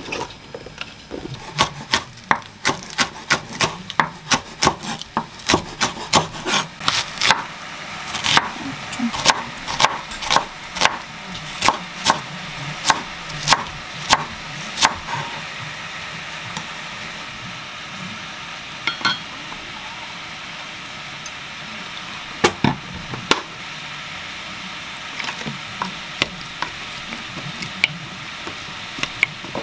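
Chef's knife chopping green onion and onion on a wooden cutting board, about two to three strikes a second for the first half, then a few more strikes later on. Near the end come light clicks of a wooden spoon stirring sauce in a glass bowl.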